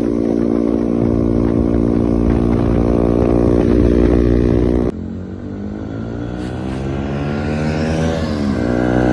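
Bajaj Pulsar NS160's single-cylinder engine through an aftermarket SC Project full-system exhaust, running steadily close at the tailpipe. About five seconds in the sound changes abruptly to the bike accelerating on the road, its pitch rising, dropping briefly near the end, then climbing again.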